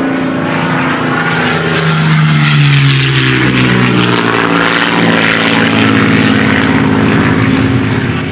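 Propeller airplane engine passing by, its pitch dropping as it goes by about two to three seconds in, then running on steadily and easing off near the end.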